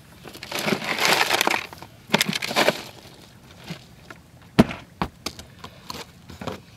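Hands digging through crushed ice in a cooler, crunching and rattling in two bursts, followed by two sharp knocks about half a second apart.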